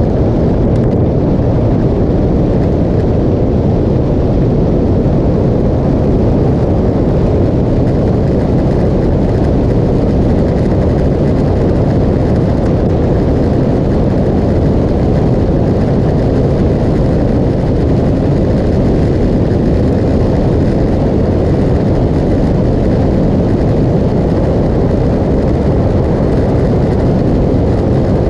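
Steady rush of wind and road noise from a motorcycle cruising at speed on a paved road, wind buffeting the camera's microphone, with no distinct engine note standing out.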